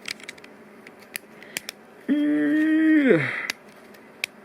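A man's voice holding one hummed or sung note for about a second, sliding down in pitch at the end, among light clicks of LEGO Technic plastic pieces being handled.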